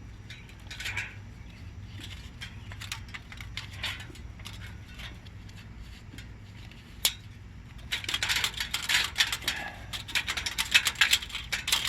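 Light metallic clicks, scrapes and rattles of engine parts and tools being handled during an engine teardown, with one sharp click about seven seconds in. The clatter gets busier and louder about eight seconds in.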